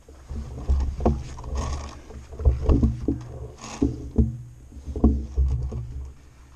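Footsteps on grass and dirt with clothing and gear rustling, picked up by a body-worn camera: irregular thuds about one or two a second over a low rumble of handling noise, with a couple of short brushing rustles.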